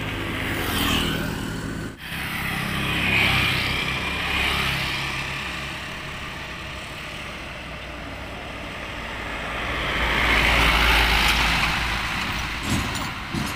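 An engine running steadily, cut off sharply about two seconds in; then motor vehicles pass close by on the road, twice swelling up and fading away, the second with a deeper rumble. Two short knocks near the end.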